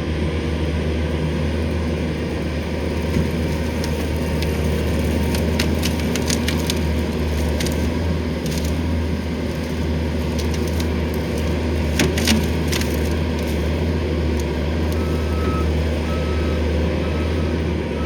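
Skid steer engine running steadily while it scrapes the ground, with sharp cracking and snapping of brush and wood being pushed over, loudest about twelve seconds in. Its reversing beeper starts beeping near the end.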